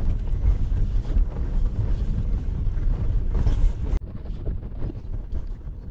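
Toyota Tacoma driving slowly over a rough dirt 4x4 trail: a steady low rumble of engine, tyres and cab, heard from behind the windshield. About four seconds in it cuts off abruptly to a quieter background with scattered light clicks.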